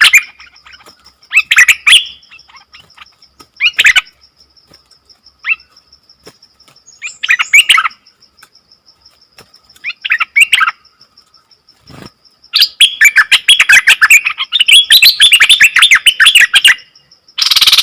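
A caged nok dok taeng songbird singing short, fast phrases every couple of seconds, then a long rapid run of chattering notes lasting about four seconds near the end. A steady high insect buzz runs underneath.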